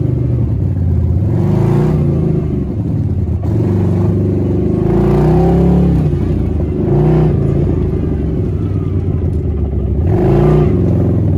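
CFMOTO ZForce side-by-side's engine running and revving up and down about four times.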